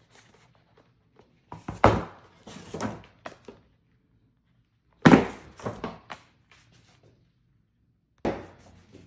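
Handling noise from unboxing an iPhone 17 Pro box and its packaging: dull thunks with scraping and rustling. They come in three clusters, about a second and a half in, about five seconds in, and near the end.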